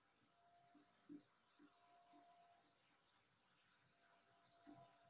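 Steady high-pitched trill of crickets, unbroken, with faint soft scratches of a marker writing on a whiteboard.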